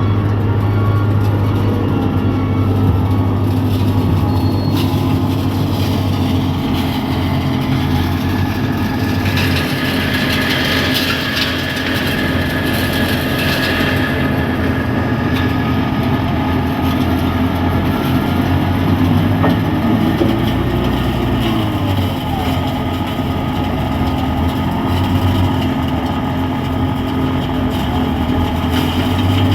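Heavy diesel road-work machinery running steadily, a constant low engine drone with a steady tone over it. A harsher, higher-pitched noise joins in for several seconds about nine seconds in.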